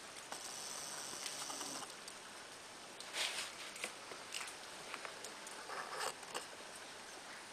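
Young puppies stirring in their bedding: soft rustling and scratching with scattered small clicks, and louder rustles about three seconds and six seconds in.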